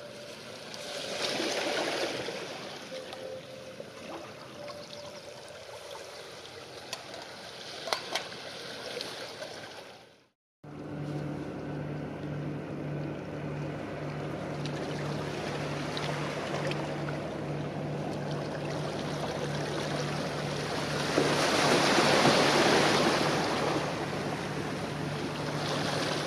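Water lapping along the shore with light wind noise. After a short break in the sound, a steady low drone of a boat engine running out on the bay joins it, and a wave washes in louder near the end.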